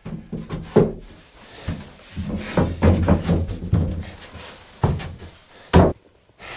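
A series of thuds and knocks from gear being handled on a wooden bed platform in a small panel-walled room, the loudest knock near the end.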